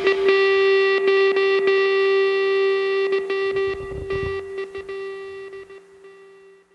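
Background rock music ending on a held, effects-laden electric guitar note that slowly fades out.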